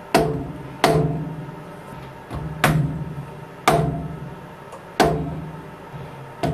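Six sharp knocks at uneven intervals, each ringing briefly, over a steady low hum.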